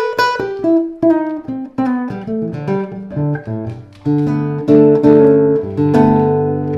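Ramirez 2CWE nylon-string cutaway guitar played: a run of quick plucked notes, then from about four seconds in a few chords strummed and left to ring.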